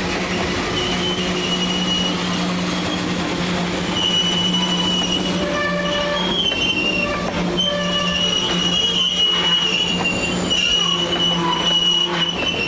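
Freight train rolling past, its wheels squealing in high on-and-off tones over a steady low hum.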